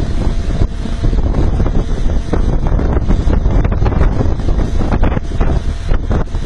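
Heavy wind buffeting the microphone over the low rumble of a ship under way, with seawater churning.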